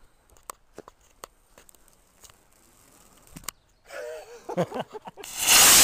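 Faint scattered ticks, then a short wavering vocal cry about four seconds in, followed by a sudden loud rushing hiss from about five seconds in.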